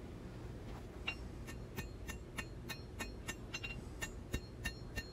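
Hand-forging hammer blows on a hot 1084 steel knife blade over an anvil, about three a second, each with a short metallic ring, starting about a second in: the blade's edge bevel being drawn out.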